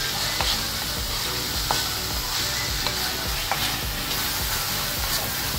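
Prawns and sliced onions frying in mustard oil in a wok, sizzling steadily while a spatula stirs them, with several sharp knocks and scrapes of the spatula against the pan.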